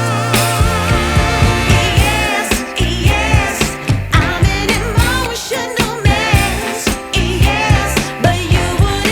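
Background song: a singer with vibrato over a steady beat.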